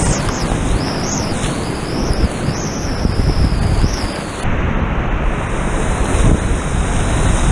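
Whitewater of a creek rapid rushing loudly around a kayak running it, with wind and water buffeting the camera's microphone.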